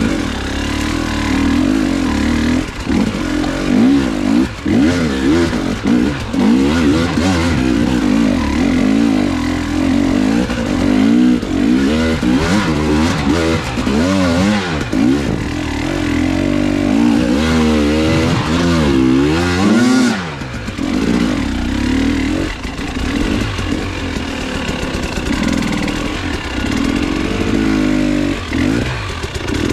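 Motorcycle engine running and revving, its pitch rising and falling over and over, most rapidly in the middle stretch.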